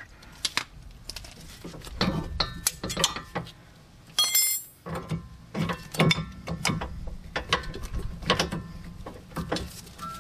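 Brake caliper being worked by hand onto its bracket over the rotor: an irregular run of metallic clicks, clunks and scrapes, with one short high metallic ring about four seconds in. It goes on tight because its piston was not compressed first.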